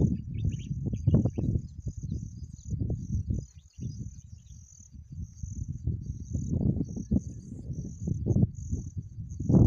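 Crickets chirping in a steady run of short, regular pulses, under a louder low rumble of wind gusting on the microphone.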